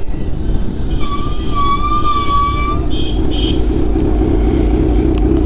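Sport motorcycle engine running under way with heavy wind noise as the bike rides along. About a second in, a horn sounds steadily for nearly two seconds, followed by two short, higher beeps.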